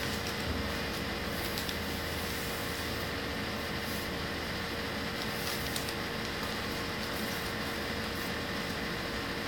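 Steady background hiss with a faint hum, with a few faint rustles of crepe paper being folded and handled.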